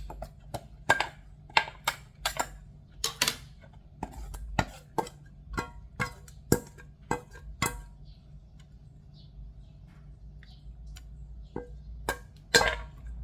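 A series of sharp clinks and knocks of kitchen utensils against dishes, about two a second for the first eight seconds, then a few more spaced out, with the loudest near the start and near the end. A faint low hum runs underneath.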